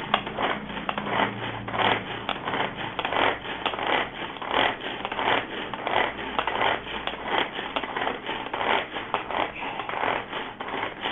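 Pull-string manual mini chopper being pulled over and over: each pull gives a short zipping whirr as the cord spins the three stainless steel blades inside the plastic jar, chopping cucumber, in a steady, quick rhythm.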